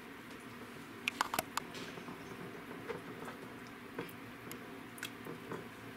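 A silicone whisk stirring beaten eggs and cream in a bowl: faint, irregular light taps and clicks against the bowl, with a cluster of them a little over a second in.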